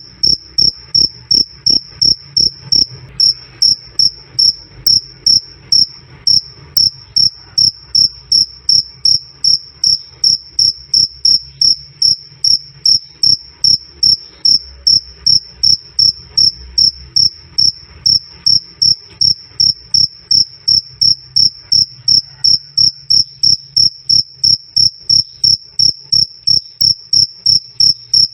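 Cricket (jangkrik) chirping loud and clear: one high-pitched chirp repeated at an even pace, about two to three times a second.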